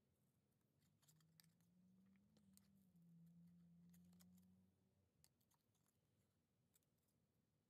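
Very faint snips of scissors cutting a small piece of card. A low hum sets in about a second in and fades out about five seconds in.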